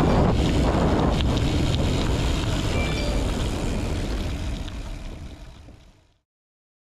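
Wind rushing over the microphone of a camera riding along on a gravel bike, a steady low rumble with a faint hiss. It fades out from about four and a half seconds in and stops dead about a second and a half later.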